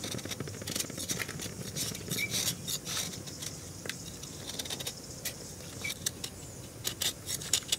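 A knife blade shaving a block of jaggery, with crumbs and flakes falling into an aluminium pan: irregular light scrapes and clicks.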